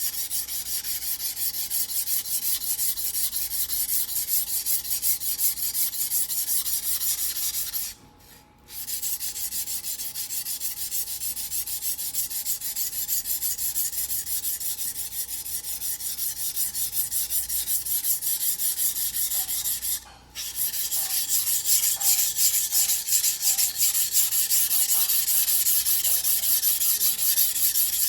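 Yanagiba blade of White No. 2 steel being sharpened by hand on a whetstone: a steady run of quick back-and-forth grinding strokes, several a second. The strokes stop briefly twice, about 8 and 20 seconds in, and run a little louder after the second pause.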